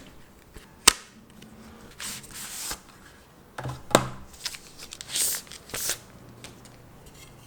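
Packaging being handled and opened: rustling and tearing of wrapping, with a sharp click about a second in and a knock near the middle.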